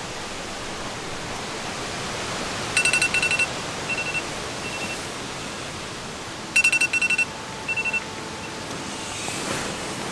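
Strong wind rushing steadily over the tent and microphone, overlaid twice by an electronic alarm beeping in quick bursts, about three seconds in and again around seven seconds.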